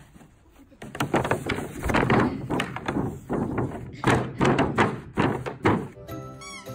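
A hard-plastic kiddie pool being grabbed, flipped and dropped by a large dog. From about a second in comes a quick, irregular run of hollow plastic thunks and knocks against the ground.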